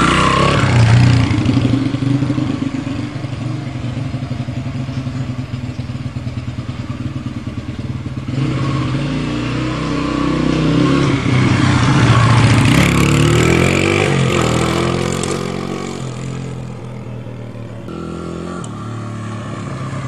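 Small Honda dirt bike engine running as the bike is ridden close past, away and back, on a cam chain that has been rejoined and spot-welded rather than replaced. The pitch rises and falls with the throttle. It is loudest about a second in and again around twelve seconds, then fades to a steadier, quieter running.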